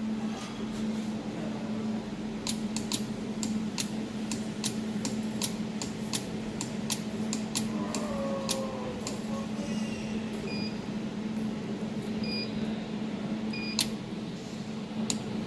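Pulsed jewelry laser welder firing, a sharp snap about three times a second over the steady hum of the machine. The snaps go on for several seconds and then thin out, followed by three short beeps near the end.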